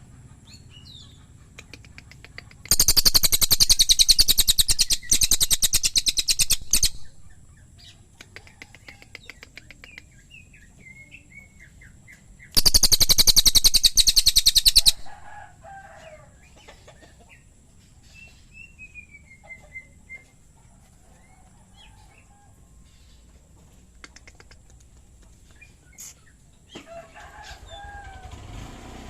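A cililin songbird giving two loud bursts of a very fast, dry rattling call, the first about four seconds long and the second about two and a half, with soft chirps and short whistled notes in between.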